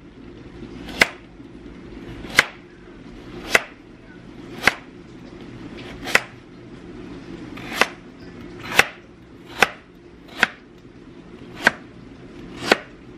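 Kitchen knife slicing a carrot into rounds on a plastic cutting board: about eleven separate sharp chops, roughly one a second, each a knock of the blade through the carrot onto the board.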